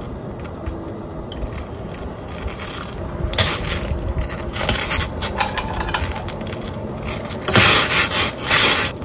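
Water bubbling in a stainless steel saucepan as clams are dropped in one after another, their shells knocking against the pot and splashing. The loudest splashes and clatter come a little before the end.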